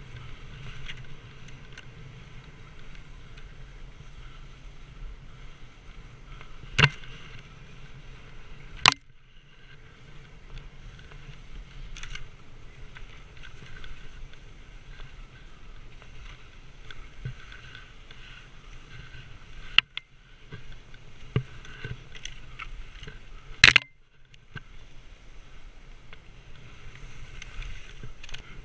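Skis hissing and scraping over snow on a downhill run, picked up close by a camera worn by the skier, with wind noise on the microphone. Several sharp knocks stand out through the run.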